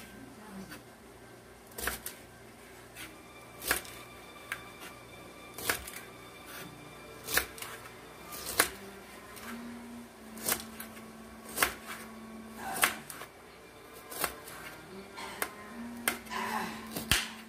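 Kitchen knife chopping a green bell pepper, the blade knocking sharply on the cutting surface a dozen or so times at uneven intervals about a second apart.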